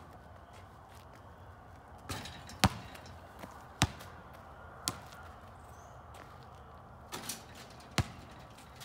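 A basketball bouncing on an asphalt driveway and being caught: several sharp slaps at irregular spacing, the loudest about two and a half seconds in, with a gap of a couple of seconds before a last cluster near the end.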